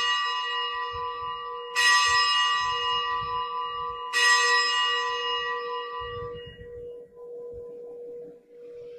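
A consecration bell rung at the elevation of the chalice during Mass: three rings about two seconds apart, each one fading slowly, the last dying away about two seconds before the end.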